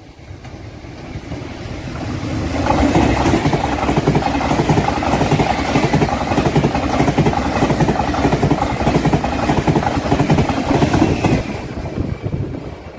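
Taiwan Railways PP Tze-Chiang (E1000 series push-pull) express train passing at high speed. Its sound builds over the first few seconds, then a loud, rapid clatter of wheels on rail runs for about eight seconds before easing off near the end.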